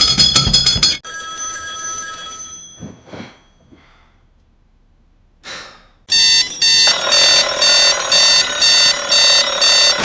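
Alarm clock bells ringing loudly, cutting off about a second in and fading out. Two short whooshing sounds come next. About six seconds in, a second bell alarm starts, ringing in pulses at roughly one and a half a second.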